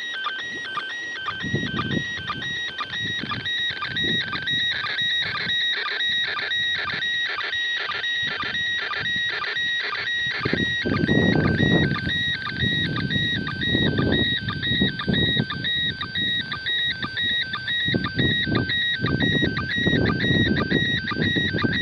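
A two-tone warble signal from a radio receiver, flipping between two pitches a few times a second without a break. Rushing noise swells in and out underneath, louder in the second half.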